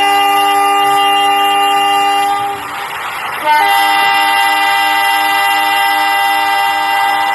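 Train horn sounding a held chord in two long blasts, the second starting about a second after the first ends.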